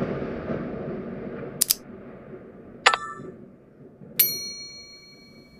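Subscribe-button animation sound effects: a fading whoosh, a quick double click, a click with a short chime, then a notification-bell ding about four seconds in that rings on for over a second.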